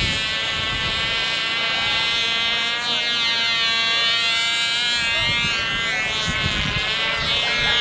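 A small propeller plane's engine running at high power overhead: a steady high note with many overtones that wavers slightly in pitch as the plane flies past.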